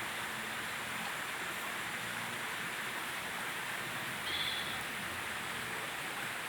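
Steady rushing of a nearby stream, with a brief high chirp about four and a half seconds in.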